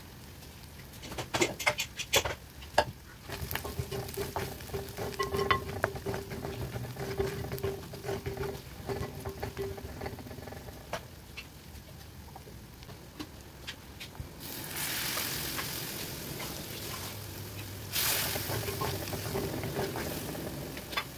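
A spoon stirring and scraping onions and chilli powder as they fry in oil in an earthenware clay pot, with scattered clicks and scrapes against the pot. In the second half a louder sizzling hiss comes in two stretches.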